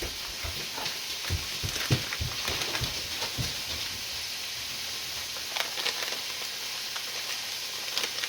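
Ground beef sizzling steadily as it browns in a frying pan, with scattered knocks and clicks, mostly in the first few seconds and again near the end.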